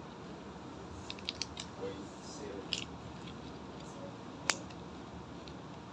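Small sharp clicks and crinkles over a steady hiss: a quick cluster about a second in, another shortly before three seconds, and one louder single click about four and a half seconds in.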